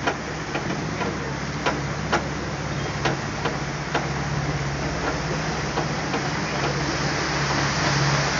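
Steady low hum of a tour boat's motor, with scattered sharp clicks and ticks over it.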